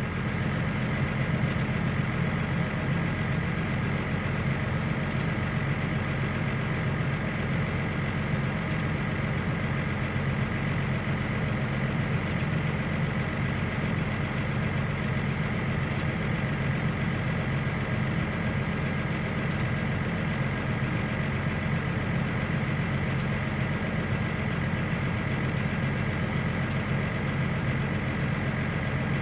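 An engine idling steadily, its low hum even and unchanging.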